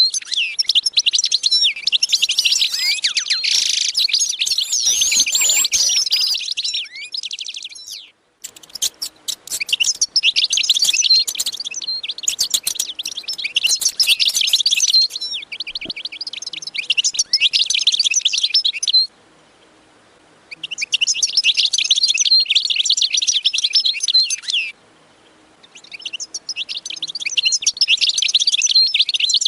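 Dense chorus of many small birds chirping rapidly, in stretches that cut off abruptly three times.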